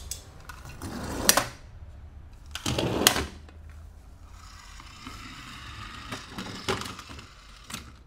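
Toy cars and their plastic packaging being handled: two loud swells of rustling and clicking, about a second in and about three seconds in, then quieter scraping with a few sharp clicks.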